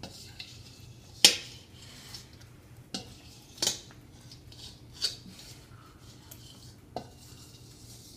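A few sharp clinks and knocks of hard objects, like utensils against dishes, about five of them spaced a second or two apart.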